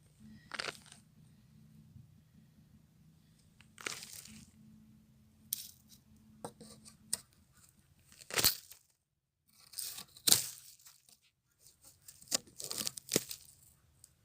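A series of short tearing, crackling sounds, about seven at irregular intervals, some with sharp clicks.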